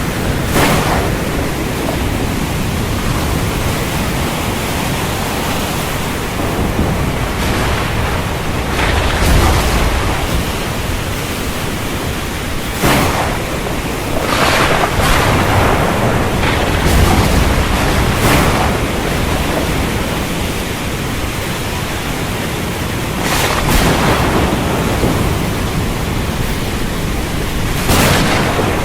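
Stormy wind over rough ocean surf: a steady rushing noise, with a brief hissing surge every four to five seconds and a deep rumble twice.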